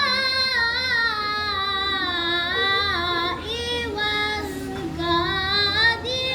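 A young girl's voice chanting Qur'anic recitation in the melodic qira'ah style, holding long ornamented notes with a short breath about halfway through.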